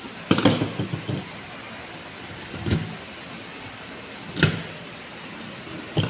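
Clicks and knocks of a small screwdriver working the terminal screws of a fire alarm control panel while the wires are handled against the panel box: a quick cluster in the first second, then three single knocks a second or two apart.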